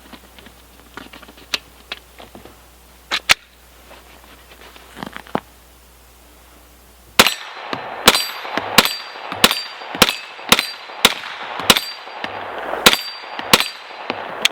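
Kel-Tec Sub-2000 9mm semi-automatic carbine fired in a quick string of about a dozen shots, roughly two a second with one short pause, starting about halfway through. Before that come faint handling clicks and one sharp click about three seconds in.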